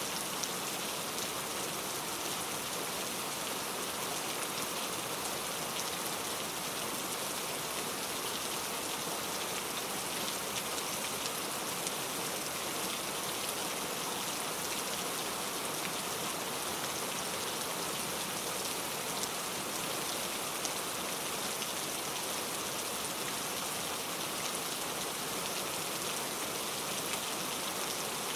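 Heavy rain falling steadily, a dense even hiss of drops with fine scattered patter, unchanging throughout.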